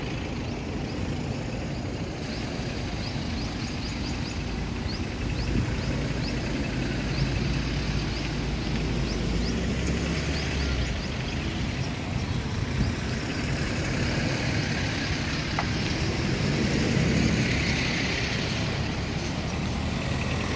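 A convoy of SUVs driving along a dirt road, giving a steady mix of engine and tyre noise with a low rumble.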